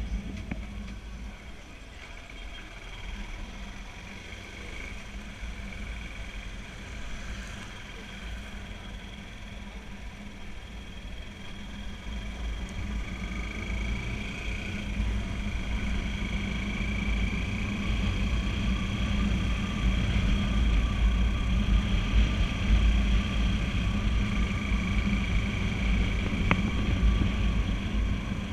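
Motorcycle running along a street, its engine hum mixed with low wind rumble on the camera microphone, growing louder about halfway through.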